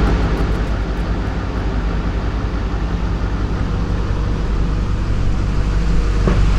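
A motor vehicle running steadily: a low engine rumble under a wash of road or wind noise, starting abruptly and slowly growing louder.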